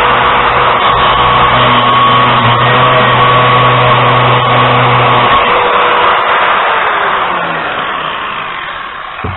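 Grinder loudly grinding down a steel carriage bolt. The grinding stops about five seconds in, and the motor then winds down, falling in pitch and fading out.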